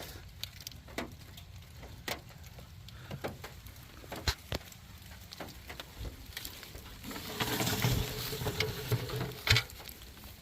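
Scattered light clicks and taps of hands handling engine wiring and connectors, with a louder spell of rustling and handling a few seconds before the end.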